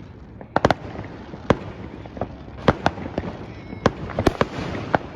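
Fireworks going off: about a dozen sharp bangs at irregular intervals, some in quick pairs, over a steady background of crackle and noise.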